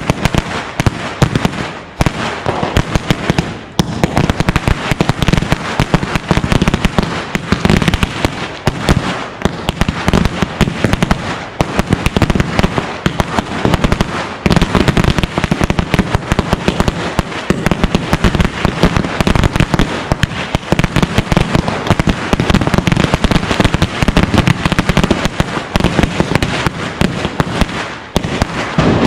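Firecrackers going off on the ground in a rapid, continuous run of loud bangs and crackles, with brief let-ups about 2 and 4 seconds in.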